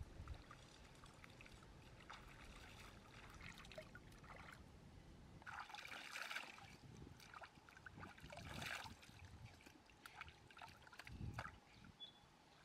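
Quiet trickling and splashing of shallow stream water scooped up in cupped hands and thrown onto a face, with two stronger splashes about halfway through and a couple of seconds later.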